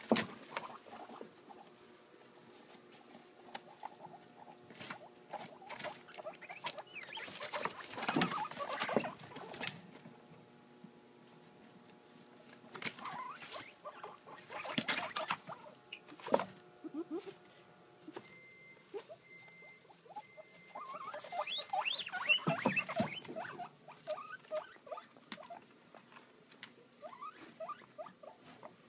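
Guinea pigs scrabbling and rustling through wood-shaving bedding in a wire cage, in irregular clusters of scratchy patter, with a run of short squeaks about three quarters of the way through.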